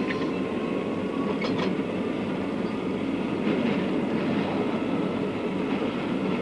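Steady rumble and rattle of a running tram, heard from inside the car, with a faint thin whine in the first second and a brief sharp click about a second and a half in.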